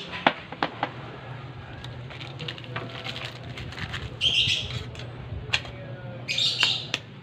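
Light clicks and taps of a bowl, cooking-oil bottle and egg being handled on a glass tabletop, with a steady low hum behind. Two short, shrill, chirp-like bursts come about four and six and a half seconds in.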